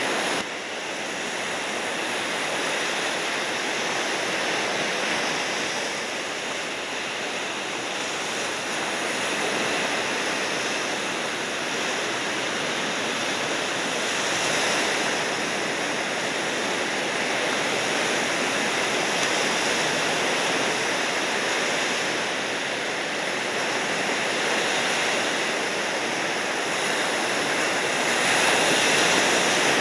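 Steady rush of ocean surf, swelling gently now and then and loudest near the end.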